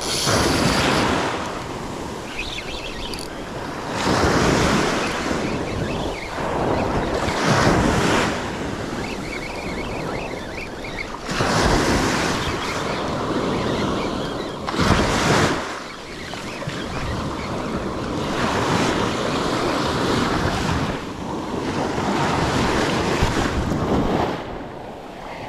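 Surf breaking and washing up the sand in repeated surges every few seconds, with wind buffeting the microphone.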